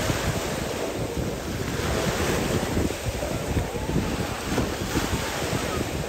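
Wind gusting on the phone's microphone over the steady wash of small sea waves at the shoreline.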